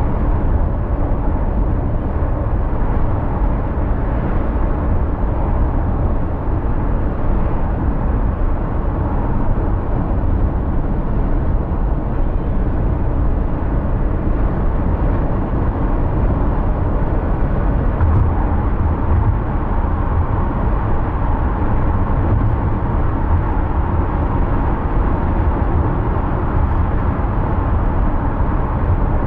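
A car driving on city roads: a steady mix of engine and tyre road noise that holds even throughout.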